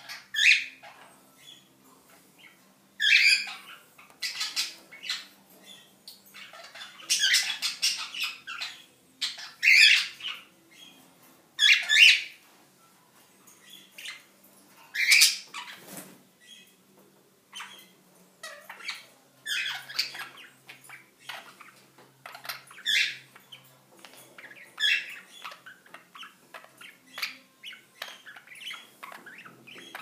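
Pet cockatiels and budgerigars calling: loud, sharp squawks every couple of seconds, with softer chirping chatter between them.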